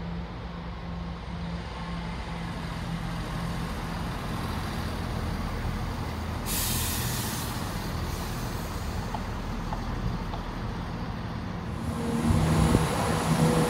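Diesel train engine idling with a steady drone, a sharp hiss of released brake air about halfway through lasting about a second, then the engine note rising and growing louder near the end as it powers up.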